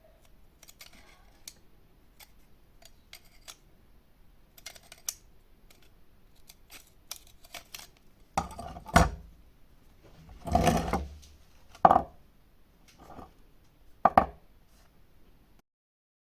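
Scattered light clicks, then five louder, short clanks and rattles, like hard objects being handled and set down; the sound cuts off abruptly near the end.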